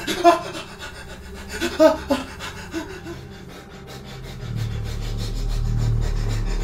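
A man's strained grunts and heavy breaths in a few short bursts. A low steady hum swells in during the second half.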